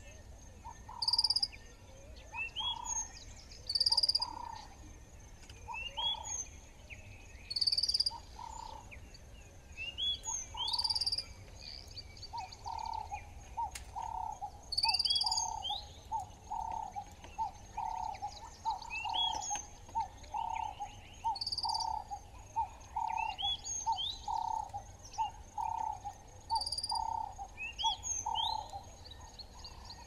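Frogs calling with short croaks, settling about halfway through into an even series of nearly two a second. A bird repeats a short, high, falling phrase every couple of seconds, over a faint steady insect whine.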